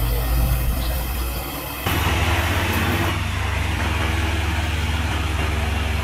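A heavy truck's engine running, cut off abruptly about two seconds in and replaced by a farm tractor's engine running steadily.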